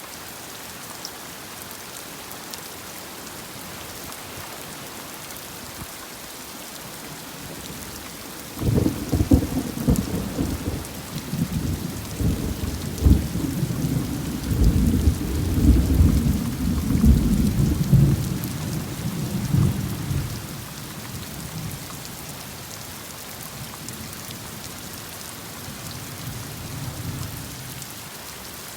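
Steady heavy rain falling throughout. About nine seconds in, thunder breaks in with a crackle and rumbles loudly for about ten seconds before fading, with a fainter rumble near the end.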